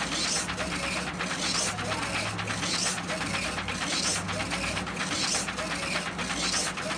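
Funsun DTF printer running, its print-head carriage shuttling back and forth across the film while printing white ink. A rhythmic whir and hiss comes once a pass, about every second and a bit.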